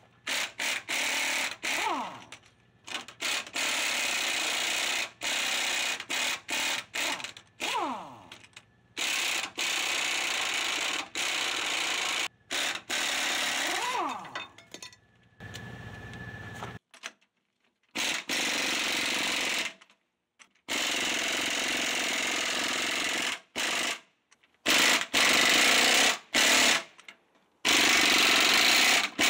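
Impact wrench hammering in repeated runs of one to three seconds, each stopping sharply, loosening the U-bolt nuts that hold a 1976 Ford F100's 9-inch rear axle.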